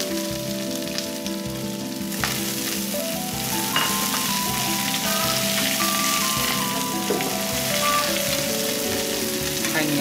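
Sliced shallots, lemongrass and mắc mật leaves sizzling steadily in hot lard in a frying pan over high heat, tossed with wooden chopsticks.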